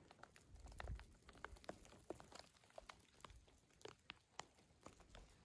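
Near silence, with faint, irregular small clicks and ticks scattered through it.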